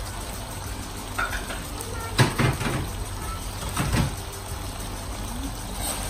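Beef strips simmering in soy-based sauce in a stainless steel pan, a steady sizzling bubble. A few brief clatters break in, the loudest about two seconds in and another about four seconds in.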